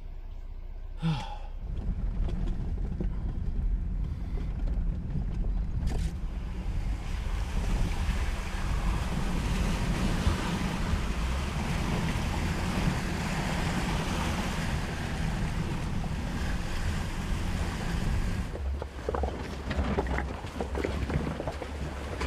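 Jeep Gladiator Rubicon driving slowly through a muddy water hole, heard from inside the cab: the engine runs low and steady under a wash of sloshing, splashing water, which dies away near the end while the engine carries on.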